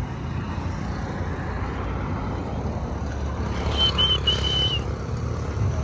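Steady low rumble of road traffic and vehicle engines, with a run of short high-pitched beeps about four seconds in: three quick ones, then a longer one.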